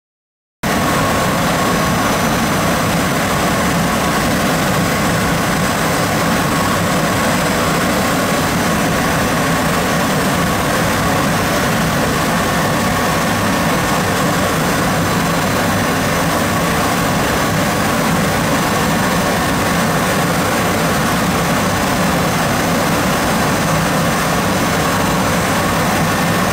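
Hwacheon Hi-M G1 vertical machining center milling graphite with a 6 mm end mill, its spindle at 12,000 rpm: a steady running noise with a constant tone. It starts abruptly about half a second in.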